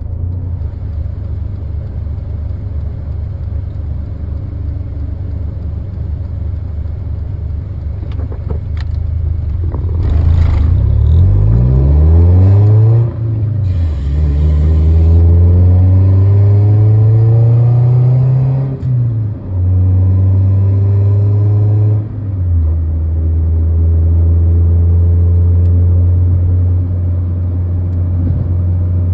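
1996 Acura Integra LS's 1.8-litre four-cylinder engine heard from inside the cabin, idling steadily at a stop, then pulling away through its manual gearbox. The pitch rises in first gear, drops at a shift, climbs again in second, drops at a second shift about two-thirds in, and then settles to a steady cruise.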